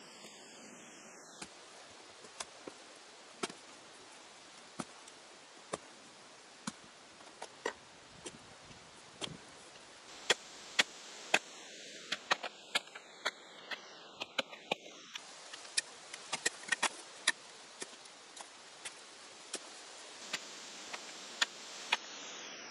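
Long-handled shovel digging into rocky, gravelly soil: sharp clinks and scrapes of the blade striking stones, scattered at first and coming faster and louder in the second half.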